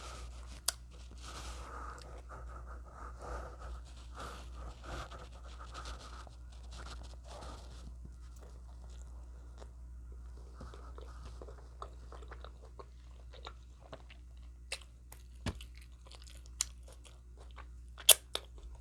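A person chewing and biting food close to the microphone: soft wet mouth sounds with scattered sharp crunches and smacks, busier in the first half and sparser later.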